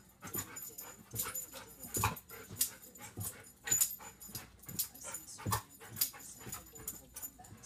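A dog whimpering and yipping in short, sharp sounds, about two a second, as it jumps at the TV.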